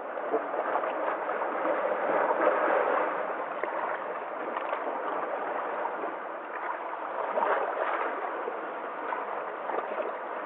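Running water, a steady rush.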